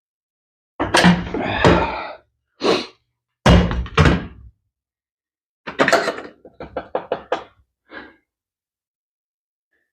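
Heavy knocks and thunks as a broken kick-starter cover is worked loose from a 1973 Harley-Davidson Ironhead: a few single blows, some with a short low ring, then a quick run of lighter rattling taps about six seconds in.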